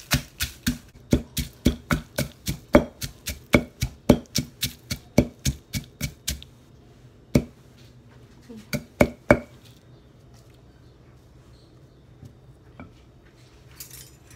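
Wooden pestle pounding red chilies and garlic in a large mortar: fast, even knocks, about four a second, for some six seconds. Then a lone strike, three more close together, and the pounding stops.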